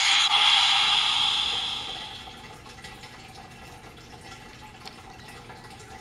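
Fisher-Price Trackmaster motorized toy engine (Spencer) whirring down to a stop: the battery motor and gear hiss fades out over about two seconds. A faint steady background remains after that.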